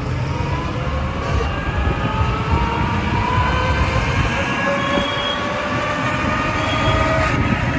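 Electric rickshaw's motor whining over road rumble, several tones rising slowly together in pitch as it gathers speed.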